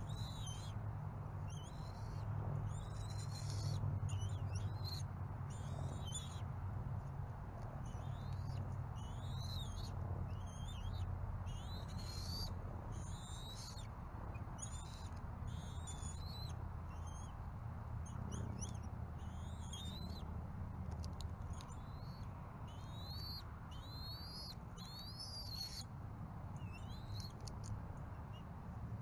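Birds giving short, high-pitched chirps and whistling calls with quick rising and falling sweeps, repeated every second or so, over a steady low hum.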